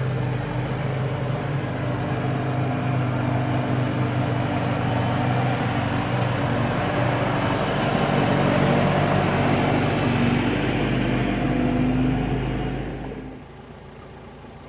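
Diesel engine of a JCB 3CX backhoe loader running steadily; the sound drops away sharply about 13 seconds in, leaving a much quieter background.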